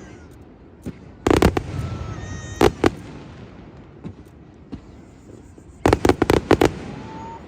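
Aerial display fireworks going off in bursts of sharp bangs. A few come about a second in, then two more, then a rapid string of about six bangs near the end.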